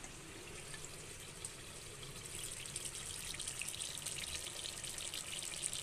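Thick chicken curry bubbling and sizzling in an open pressure cooker still on the heat. The crackle grows louder from about two seconds in as the lid comes off.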